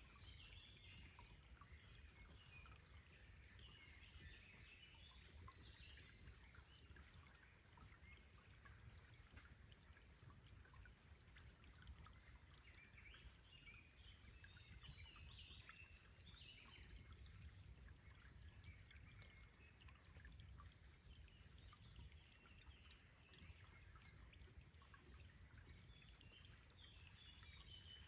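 Faint birdsong, quick chirps coming in three spells, over a soft steady trickle of a small forest stream.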